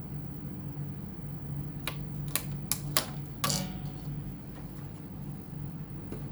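A handful of sharp clicks and taps in quick succession over a steady low hum; the last one rings on briefly.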